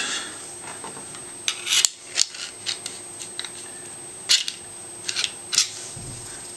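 Irregular small clicks and scrapes of metal parts being handled as a Glock's locking block is worked loose from the pistol frame.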